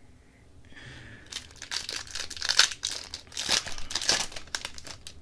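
Wrapper of a Tim Hortons Upper Deck hockey card pack being torn open and crinkled by hand, in a run of crackly rustles that starts about a second in and goes on to near the end.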